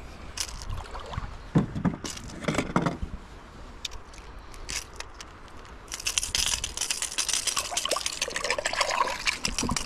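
Clicks and knocks of a small fish being handled and unhooked. About six seconds in, water splashes and trickles as the fish is let back into the river.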